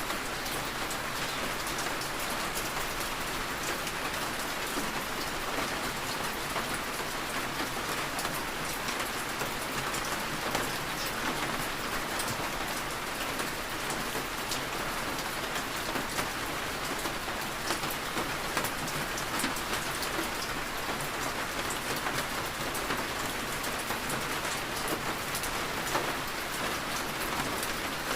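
Steady rain falling on a surface, a constant hiss with many small scattered drop ticks.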